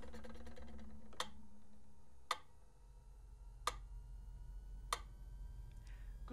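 Mechanical pyramid metronome ticking slowly and evenly, about one tick every second and a quarter.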